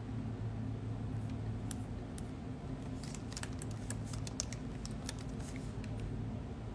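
A quick run of light, sharp clicks and taps over a steady low hum.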